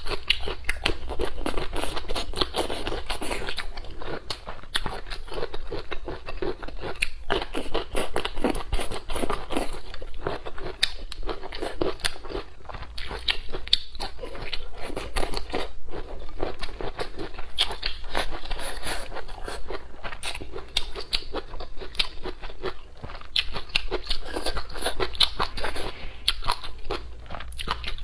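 Close-miked chewing and biting of food, a continuous run of sharp mouth clicks and smacks.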